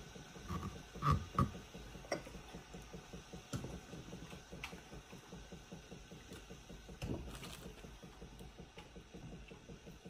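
Small pickling cucumbers being pushed by hand into a glass quart canning jar: scattered knocks and clinks of cucumbers against the glass, the loudest two close together about a second in.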